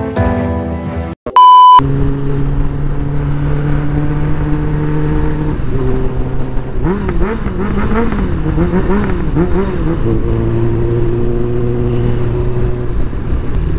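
A short, loud steady beep, then a Suzuki Bandit 600's inline-four engine running as the motorcycle is ridden. Its note rises and falls for a few seconds in the middle, then holds steady.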